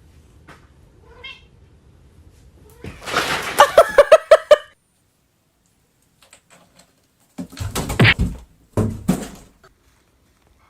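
A cat meowing, a quick run of short calls about three to four and a half seconds in, followed later by two brief bursts of noise.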